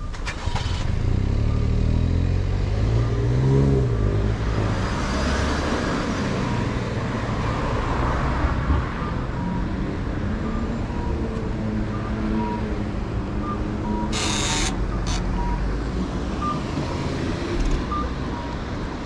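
Street traffic: motor vehicles pass with a steady rumble, and an engine's pitch slides in the first few seconds. A brief loud hiss comes about fourteen seconds in. Through the second half a short single-pitched beep repeats about every half second.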